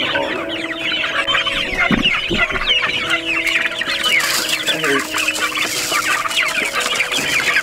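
A flock of young Delaware broiler chickens calling all at once, many short high cheeps overlapping without a break. About two seconds in come a couple of thumps, and from about four to six seconds in grain feed pours from a bucket into a metal trough with a hiss under the calls.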